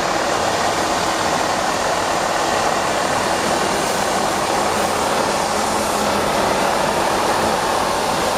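Eight-wheeled Tatra trial truck's engine running steadily at close range as the truck crawls over the course.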